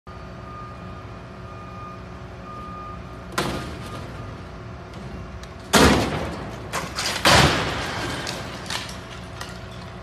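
A heavy clock face falling from a crane line down a brick tower, giving a series of loud bangs and clattering knocks as it strikes the aerial lift and the tower and crashes to the ground. The loudest bangs come a little past halfway and again a second and a half later. Under them runs the steady hum of the crane and lift engines, with two short high beeps early on.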